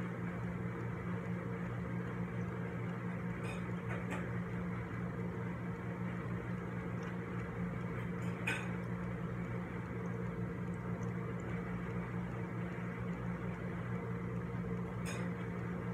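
A steady low hum over a faint hiss, with a few faint clicks; the clearest click comes about eight and a half seconds in.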